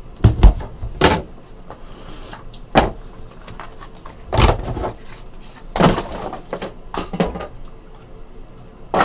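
Handling noises as a cardboard trading-card box is opened and cards in clear plastic holders are taken out: a string of short knocks, taps and rustles, the sharpest ones near the start.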